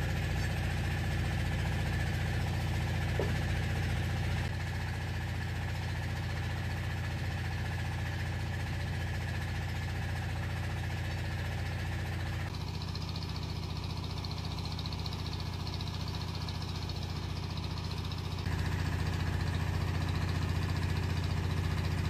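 A motor running steadily at idle with a low, evenly pulsing hum, its level and tone changing abruptly three times.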